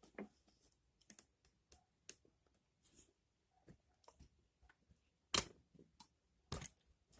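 Scattered light clicks and knocks of the lawn mower's handle parts being moved and fitted together, with two louder knocks about five and a half and six and a half seconds in.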